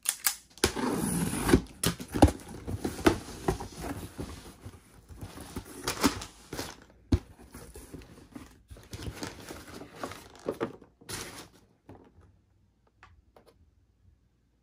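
Scissors slitting the packing tape on a cardboard shipping box, then cardboard flaps being pulled open and crumpled kraft packing paper rustling and crackling as the box is unpacked. The handling noise thins to a few faint ticks about twelve seconds in.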